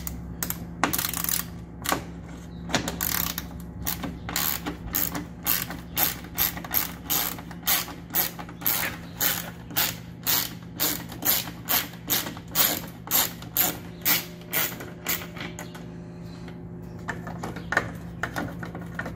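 Hand ratchet with a 10 mm socket loosening grille-mounting bolts: a steady run of sharp clicks, about two or three a second, with each back-swing of the handle, thinning out to a few weaker clicks near the end.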